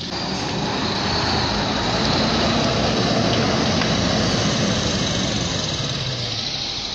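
A large engine running, growing louder through the middle and easing off near the end, with a steady high whine over a low hum.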